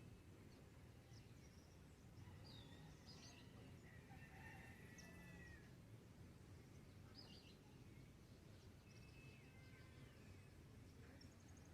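Faint dawn birdsong: scattered short chirps and a few whistled calls from several birds, over a low, steady background noise.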